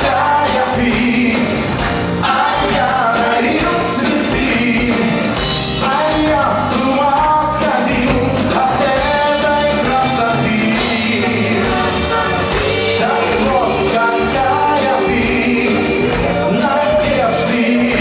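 A Soviet-era VIA pop-rock song played by a band: singing over electric guitar, bass guitar, drums and keyboard, at a steady loud level.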